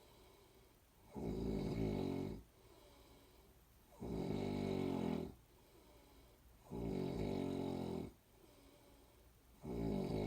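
A person snoring in an even rhythm: a loud, pitched snore lasting a little over a second, about every three seconds, four times, with a much quieter breath between each.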